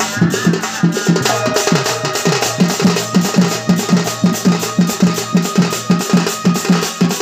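Dhol, a double-headed barrel drum, beaten by hand in a steady, fast rhythm of about four strokes a second, with a held melodic note joining about a second in.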